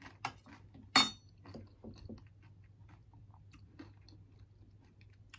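Close-up chewing of food, with soft mouth clicks, and one sharp clink with a short ring about a second in, like a utensil against a dish.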